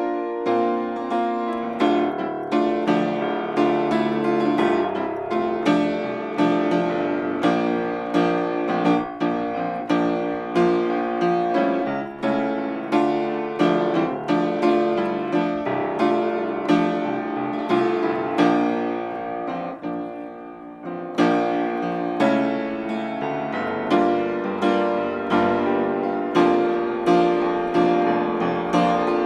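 Upright piano played solo: a continuous flow of struck notes and chords, briefly softer about two-thirds of the way through before picking up again.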